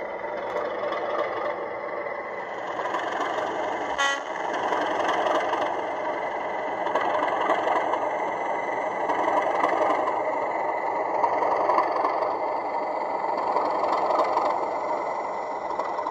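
Class 37 diesel locomotive engine sound, running steadily and swelling louder and softer, with a sharp click about four seconds in.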